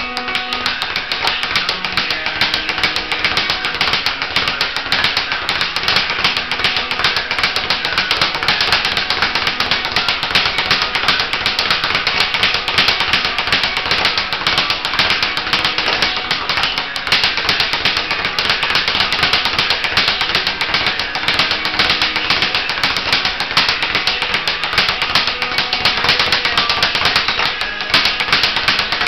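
Speed bag being punched continuously, the leather bag rebounding off the wooden rebound board in a fast, even rattle of knocks. Faint guitar music plays underneath.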